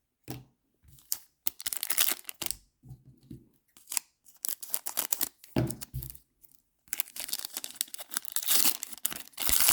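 Wrapper of a trading-card pack being torn open and crinkled by hand, in a run of short irregular bursts, with a longer stretch of tearing and crinkling near the end.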